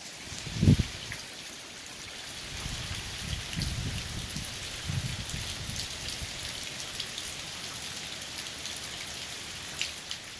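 Steady heavy rain falling on trees and ground, a continuous hiss with fine drop ticks. A brief, loud low thump comes just under a second in, and low rumbling swells come and go through the middle.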